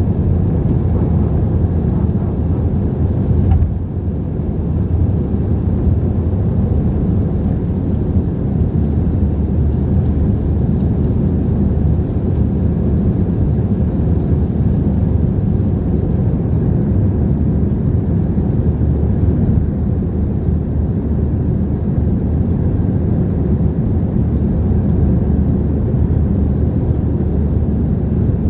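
Steady deep roar of an Airbus A321's engines and airflow, heard inside the cabin during the climb-out after takeoff. There is a brief knock about three and a half seconds in, after which the noise is slightly quieter.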